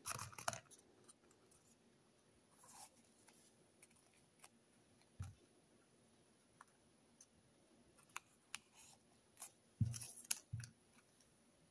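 Faint, scattered rustles and light clicks of paper wrapping and plastic press-on nails being handled, with a louder crinkle of paper about ten seconds in.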